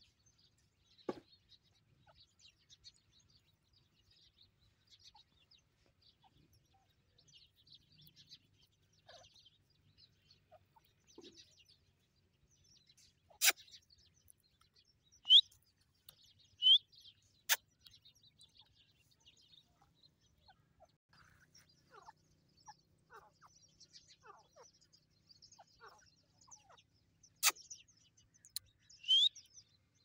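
Grey francolin family foraging, with soft clucks and faint high chirps throughout. A few louder short calls slide in pitch, and there are three sharp clicks.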